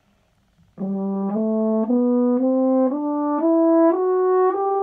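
French horn playing an ascending one-octave D major scale, starting about a second in: eight smooth, even steps up, with the top note held.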